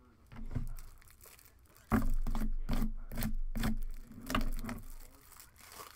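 Hard objects handled and knocked down on a hard surface: one knock, then from about two seconds in a quick run of sharp knocks and clatter.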